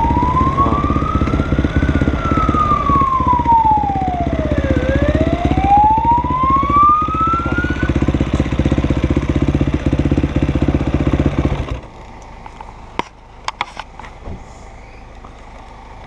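Police siren wailing, sweeping up, down and up again before stopping about eight seconds in, over a dirt bike's single-cylinder engine running. The engine is switched off about twelve seconds in, and a few sharp clicks follow.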